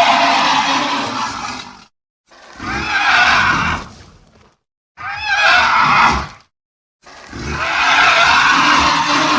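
Edited raccoon calls: harsh, noisy calls with a wavering pitch, one ending about two seconds in, then three more separated by short silent gaps, the last the longest.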